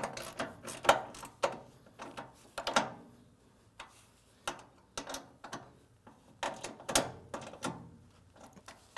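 A bolt being tightened by hand with a wrench to fasten a levelling leg to the saw base: irregular clusters of sharp metallic clicks and clinks, with short pauses between them.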